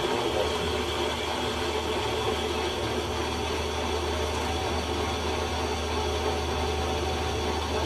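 Metal lathe running steadily, an even low machine hum with no change in pitch or level.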